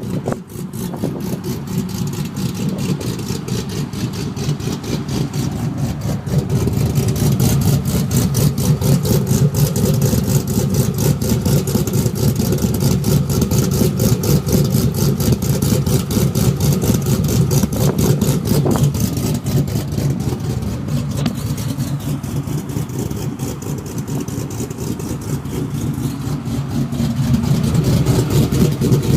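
Cammed GMC Sierra engine idling through long-tube headers, a catless 3-inch dual exhaust with an X-pipe and Borla XR1 oval mufflers dumped before the rear axle. A steady, loud pulsing idle from the aftermarket cam, with the pitch shifting slightly and the level rising a little near the end.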